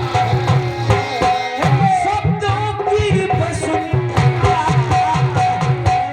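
Indian devotional folk music for jawabi kirtan: a melody line over a steady, quick hand-drum rhythm, played between sung verses.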